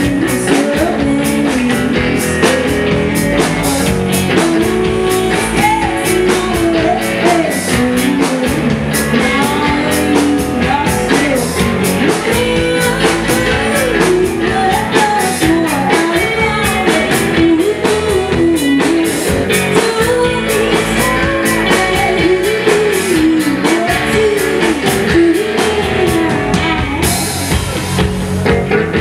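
Live indie rock band playing: electric guitars and a drum kit, with lead vocals gliding over them. The cymbals wash brighter near the end.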